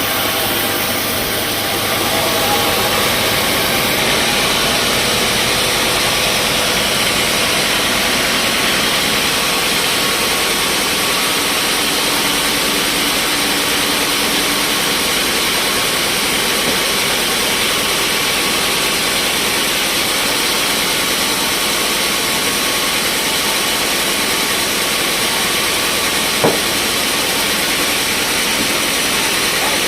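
Sawmill saw machinery running steadily with a loud, even noise. A single sharp knock comes near the end.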